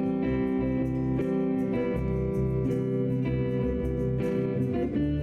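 Guitar-led music: sustained strummed chords over a bass line, changing chord about every second, with light rhythmic ticks on top.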